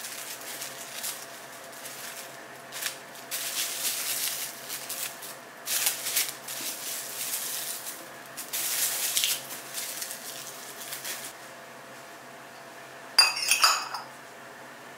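Plastic cling wrap crinkling and rustling in irregular bursts as it is stretched and pressed over a plastic pitcher. About thirteen seconds in, a stainless-steel funnel gives a few sharp metallic clinks as it is set into the neck of a swing-top glass bottle.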